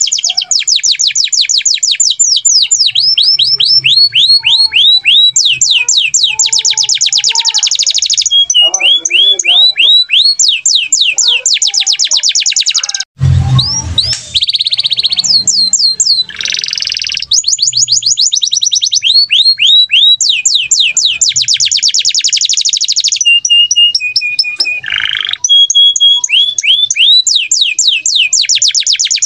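Domestic canary singing loudly and continuously: fast trills of repeated sweeping notes that switch to a new phrase every second or two, with a brief break about 13 seconds in.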